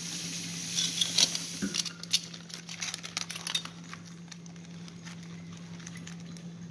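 Plastic sheeting crinkling and rustling, with sharp clicks and clatter, as metal tongs dig among live blue crabs in a plastic-lined box; busiest in the first three seconds or so, then fainter scattered clicking and scratching as the crabs move about on the plastic. A steady low hum runs underneath.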